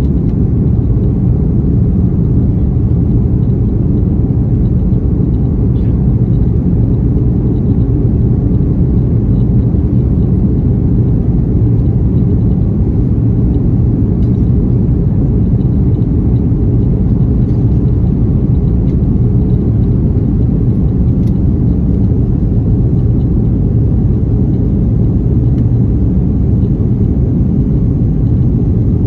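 Airliner cabin noise aboard an Airbus A330-300: a loud, steady low rumble of engines and airflow that holds level throughout.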